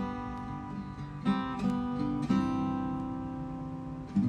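Acoustic guitar strummed and left to ring, with fresh chords struck about a second in, about a second later, and again near the end.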